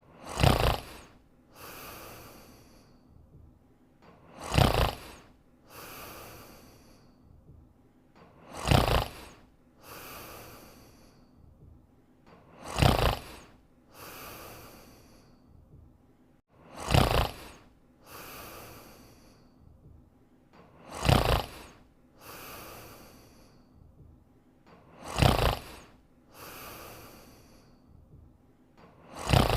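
Snoring: a loud snore on each in-breath about every four seconds, each followed about a second later by a softer, longer out-breath, in a steady sleeping rhythm.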